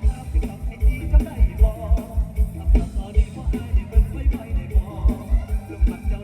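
Isan lam phloen band music, an instrumental passage over a steady, quick kick-drum beat of about three to four hits a second.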